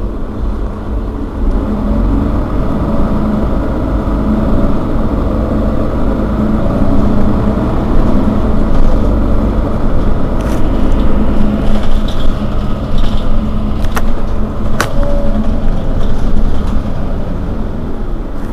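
Mercedes-Benz Citaro Facelift city bus's rear-mounted engine idling steadily with the bus standing still, a constant low hum. Two short sharp clicks sound about three-quarters of the way through.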